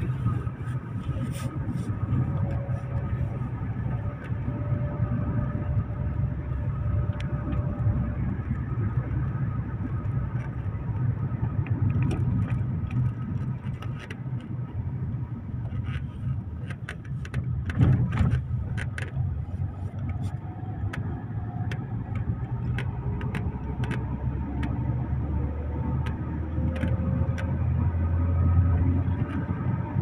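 A motor vehicle's engine running with a steady low rumble. Sharp knocks and rattles come in a cluster around the middle.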